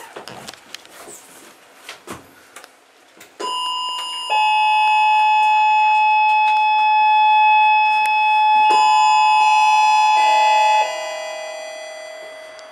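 Funicular signal bell ringing loudly and steadily for about seven seconds, then cutting off and dying away, the signal that the car is about to depart. A few light clicks and knocks come before it.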